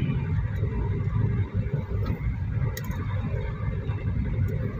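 Low, steady rumble of a car's engine and running gear heard from inside the cabin.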